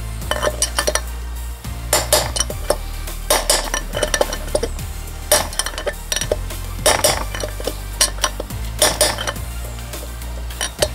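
Hammer blows ringing on the inner race of a Honda VF1000F wheel-hub bearing, driving the bearing out of the hub. The blows come in short clusters every second or two. Steady background music plays underneath.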